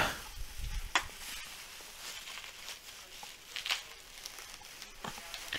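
Faint rustling and crinkling of plastic packing bags being handled and set aside, with a few light knocks.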